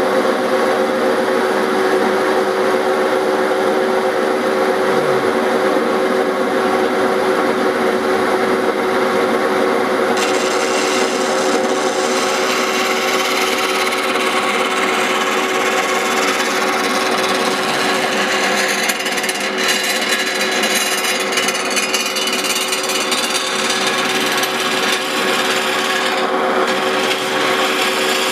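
Power tool running steadily while cutting through a strip of thin sheet metal, with a constant motor whine under a harsh grinding hiss; it starts abruptly.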